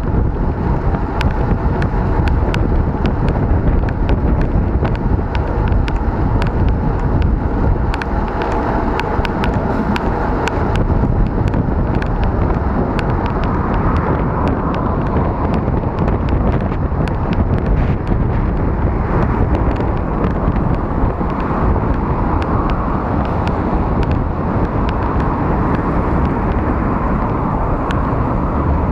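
Riding a bicycle on a wet road: wind buffets the camera microphone in a loud, steady rumble, with tyre hiss and many scattered sharp clicks and rattles, most frequent in the first half.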